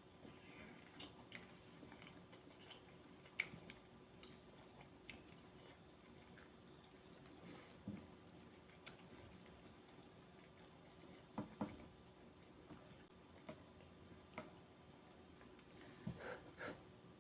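Faint chewing and mouth sounds of someone eating Thai sukiyaki hot pot noodles, with scattered soft clicks and a few sharper taps, the loudest about three and a half seconds in and twice around eleven and a half seconds in.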